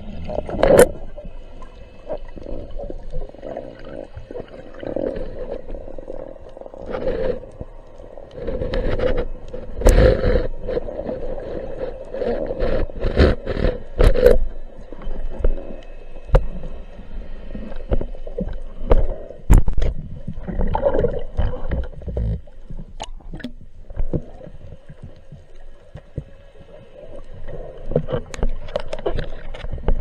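Muffled rushing and sloshing of water heard from a camera inside an underwater housing as a spearfisher swims, swelling and fading, with many sharp clicks and knocks from gear touching the housing.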